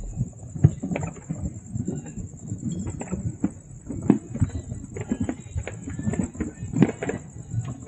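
Fireworks going off: a dense, irregular string of pops and bangs, several a second, with the sharpest cracks a little over half a second in, around four seconds and near seven seconds.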